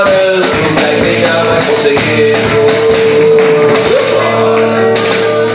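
Worship music with percussion, a long note held through most of it, and a voice singing.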